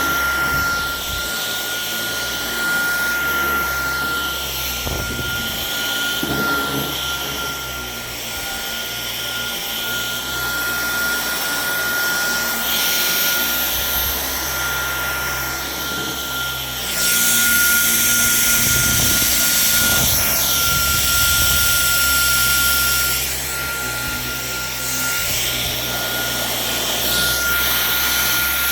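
Dyson V11 Torque Drive cordless vacuum cleaner running over carpet: a steady high motor whine with rushing airflow. It gets louder for about six seconds a little past the middle, then settles back.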